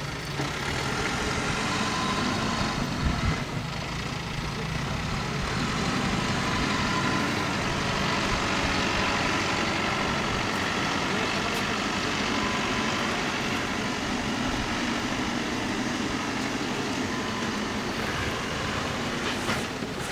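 Diesel engines of an excavator and a farm tractor running steadily under work, with a short knock about three seconds in.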